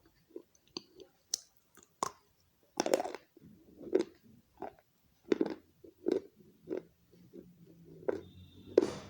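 A person biting and chewing pieces of a baked clay pot close to the microphone: a few sharp crunchy snaps at first, then irregular crunching chews about once or twice a second, with a loud crunch near the end.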